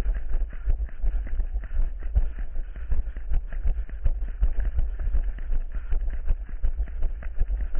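A runner's footsteps: quick, repeated thuds at a steady running pace over a constant low rumble, as heard from a camera carried by the runner.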